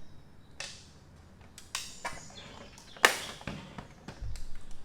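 Handling noise while measuring the fan: a few separate sharp taps and clicks, the loudest about three seconds in, and a soft low thud near the end.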